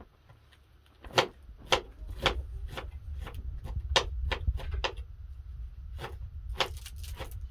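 Fresh leafy greens being picked over by hand: a run of crisp snaps and rustles as stems are broken and leaves pulled apart, starting about a second in, over a low steady rumble.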